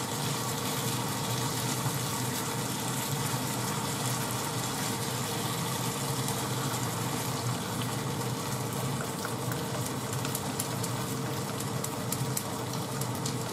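Pork and onion frying in a frying pan, a steady sizzle while it is stirred with chopsticks, with a faint steady hum underneath.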